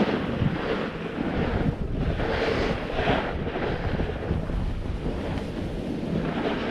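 Wind buffeting the microphone over a snowboard's edges scraping across groomed snow, the rushing noise swelling and fading in irregular surges as the board turns.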